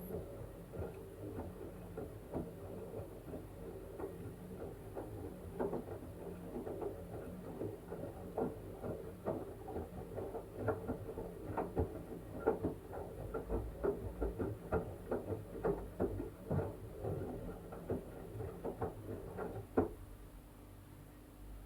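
LG washing machine tumbling a wet blanket during the wash: water sloshing and the soaked fabric slapping in irregular soft splashes over a low hum, stopping abruptly near the end.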